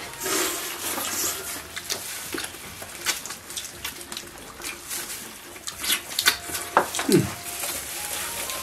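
People chewing and gnawing roast lamb ribs: a string of wet mouth clicks and lip smacks, with a short falling 'mm' from a man about seven seconds in.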